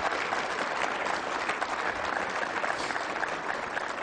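Audience applauding, a steady dense clapping of many hands that eases off slightly near the end.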